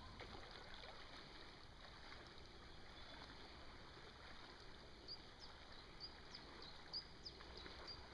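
Near silence: the faint hiss of a slow, low river, with a few faint high chirps in the second half.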